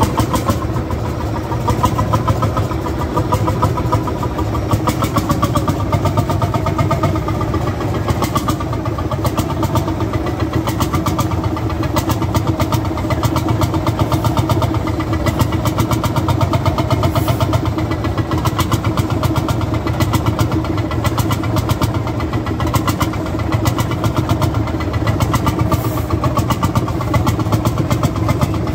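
Vintage Landini hot-bulb (testa calda) single-cylinder tractor engine running at idle, a steady, rapid put-put of evenly spaced beats that does not change in speed.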